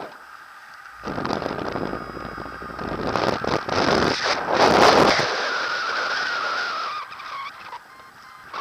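Wind rushing over the camera microphone in paragliding flight, swelling in gusts and loudest about five seconds in. After that a thin wavering whistle-like tone comes in and then fades.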